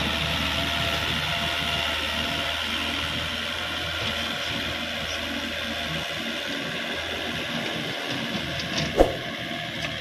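Kubota L5018 tractor's diesel engine running steadily under load while its rear rotary cultivator churns through grassy soil, getting slightly fainter as it moves away. A single short knock near the end.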